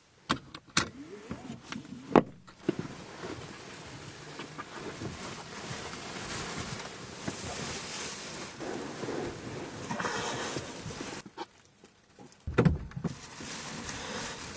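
Black plastic bin bag rustling as it is pulled and handled on a car's back seat. A few sharp clicks and knocks come in the first couple of seconds, and there is a thump near the end.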